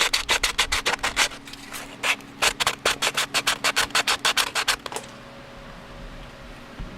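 Quick back-and-forth hand sanding or scuffing strokes on the plastic bumper cover, about six or seven a second, with a short break after about a second and a half, stopping about five seconds in.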